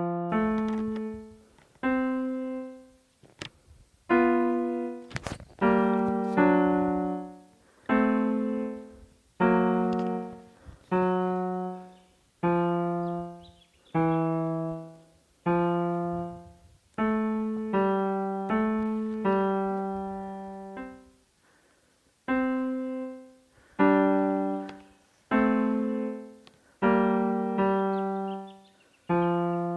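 Background music of slow chords, one struck every second or two and left to fade away.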